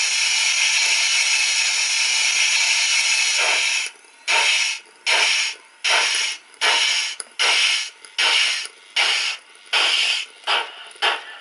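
Sound decoder of a Lenz O gauge Br98.8 model steam locomotive playing a steady cylinder-drain blowdown hiss through its small speaker. About four seconds in the hiss stops and exhaust chuffs begin, slow at first and quickening as the loco pulls away.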